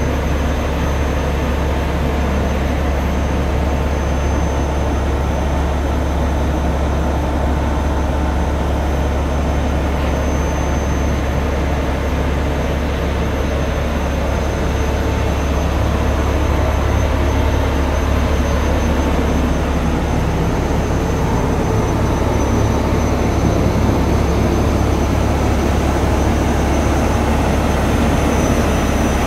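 Steady low engine drone with a few faint steady whines above it, getting slightly louder about halfway through.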